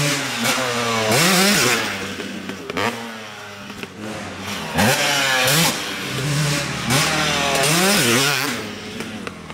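KTM 250 SX two-stroke motocross bike being ridden hard, its engine revving up and backing off repeatedly as the rider works the throttle through jumps and corners, loudest when it passes close.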